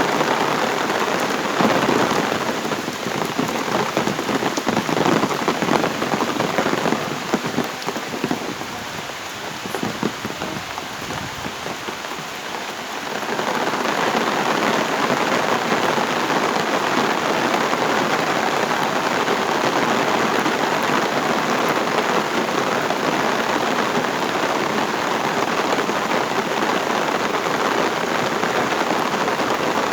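Heavy rain falling, with individual drops pattering over the hiss at first. About a third of the way in it grows into a fuller, steady downpour.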